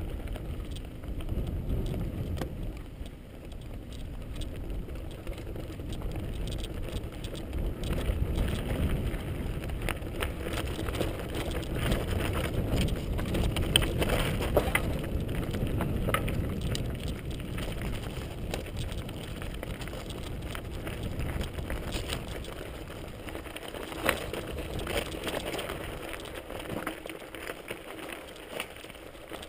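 Mountain bike rolling down a loose stony track, heard from a camera riding on the bike: tyres crunching over gravel and rocks with a continuous rumble and many small rattles and knocks from the bike. One sharper knock stands out late on.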